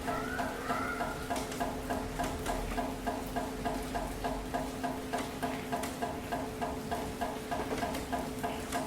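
Steady rain falling in a city, an even hiss, with a regular ticking about three times a second and a steady low hum underneath. A short whistle-like chirp sounds in the first second.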